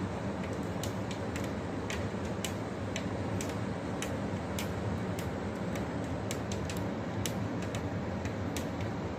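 Rain falling: a steady low wash with irregular sharp taps of drops hitting a hard surface, a few a second.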